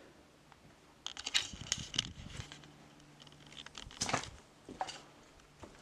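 Footsteps crunching and crackling over leaf litter, twigs and rubble on a ruined floor, in irregular bunches about a second in and again about four seconds in.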